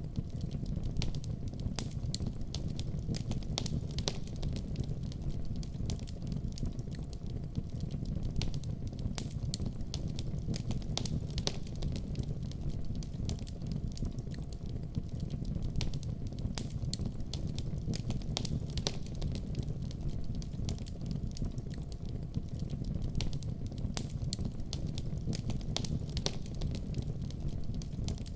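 Wood fire burning in a fireplace: a steady low rumble of the flames with frequent small, sharp crackles and pops scattered irregularly throughout.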